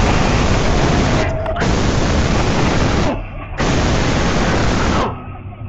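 A man screaming in three long yells with short breaks between them, so loud that the microphone clips them into harsh, static-like noise.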